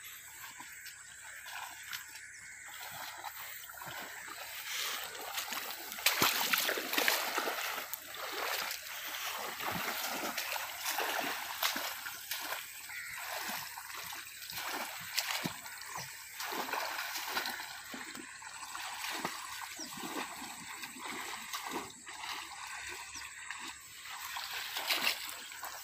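Shallow muddy water splashing and sloshing irregularly as people wade and grope by hand among reeds, busiest about six seconds in.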